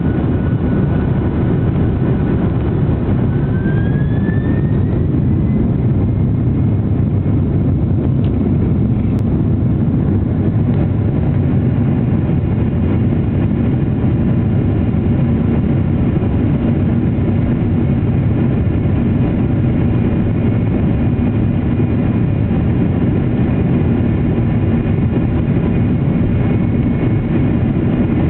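Boeing airliner's jet engines running steadily on the ground, heard inside the cabin as an even low rumble, with a faint rising whine about three seconds in.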